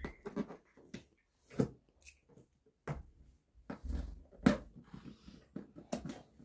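Fingers picking and scratching at the flaps of a cardboard box, with scattered short taps, scrapes and knocks as the box is handled and worked open.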